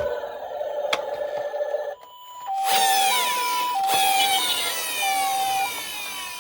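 An electronic ambulance siren: a steady tone with a click about a second in, then from about two and a half seconds in the Japanese two-tone hi-lo "pee-poh" pattern, switching between a higher and a lower note about every half second. Falling sweeping tones play over it.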